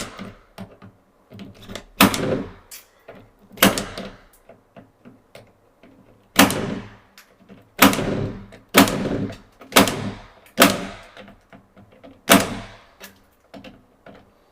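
Klein impact punch-down tool snapping wires into a 110 block: about ten sharp snaps at irregular intervals. The owner complains that it is not cutting the wire ends off in one stroke.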